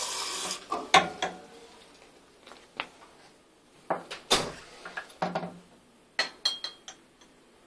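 Running tap water shuts off about half a second in. Then comes a scattered series of clinks and knocks from laboratory glassware being handled and set down, a few of them ringing briefly.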